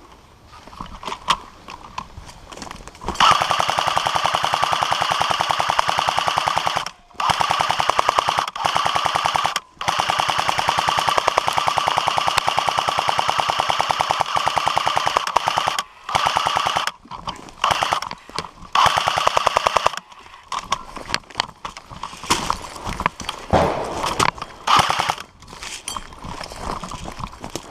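Airsoft M249 SAW electric gun firing long full-automatic bursts, the longest lasting several seconds, with brief breaks between them and shorter bursts after about 20 seconds in.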